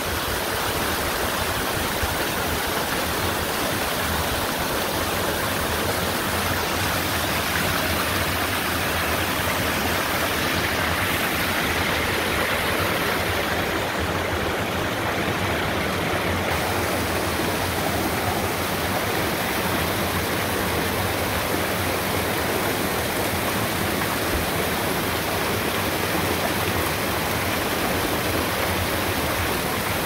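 Small waterfall and rocky creek running: a steady rush of water spilling over rocks into a pool and cascading between boulders.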